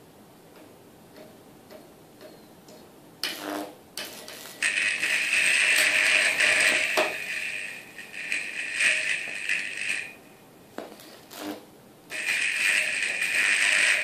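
High-voltage arc from a microwave oven transformer's roughly 2000-volt output, burning across a display circuit board. A loud buzzing crackle starts with a short burst about three seconds in, holds for about five seconds from near the five-second mark, breaks off with a few short crackles, and comes back for the last two seconds.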